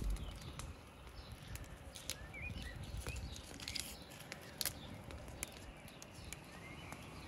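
Faint outdoor ambience with small birds chirping now and then, a few light clicks and rustles, and a low rumble underneath.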